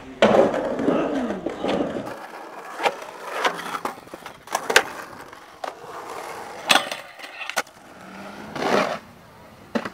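Skateboard sounds across several short clips: wheels rolling and carving on concrete for the first two seconds, then a run of sharp clacks as the board's tail pops and lands. The trucks grind along a rusty metal edge.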